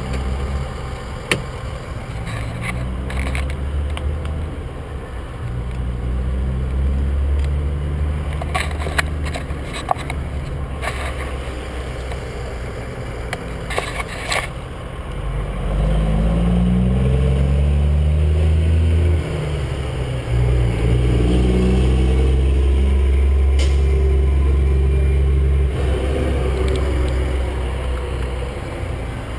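A large vehicle engine running close by with a deep, steady hum. About halfway through it revs up, rising in pitch and getting louder, then settles back near the end. Scattered clicks and knocks of the camera being handled.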